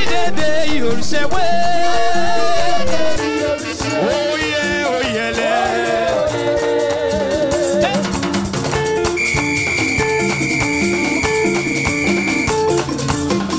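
Live praise music: a singing voice over a band with rattling shaker percussion and a steady beat, then a high note held for about three seconds in the second half.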